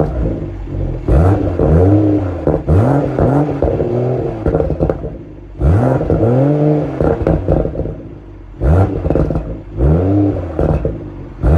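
BMW Z4 M40i's B58 3.0-litre turbocharged straight-six being blipped at standstill: about seven quick revs, each rising sharply and falling back, with exhaust pops and crackles as the revs drop.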